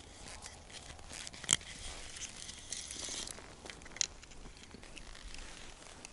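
Close handling noise of a plastic fishing-line spool and an ice rod: light rustling and scraping, with two sharp clicks, about a second and a half in and about four seconds in.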